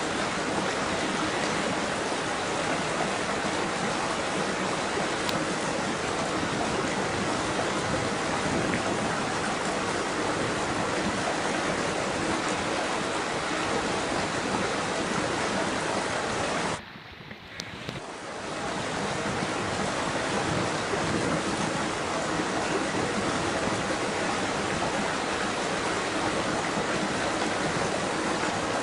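Steady rushing water that drops away sharply about seventeen seconds in and swells back within a second or two.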